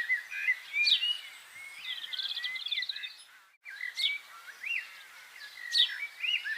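Songbirds chirping and singing: a steady chorus of short, high chirps and whistles, which cuts out briefly about three and a half seconds in and then resumes.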